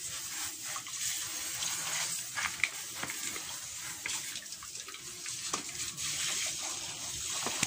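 Running water from a garden hose nozzle spraying over a pet turtle's shell and splashing into a clay basin of water: a steady rush of water being used to rinse the turtle clean.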